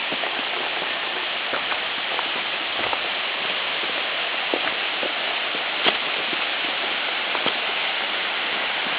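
Steady rush of water from a small waterfall, with a few scattered light clicks and taps, the sharpest about six seconds in.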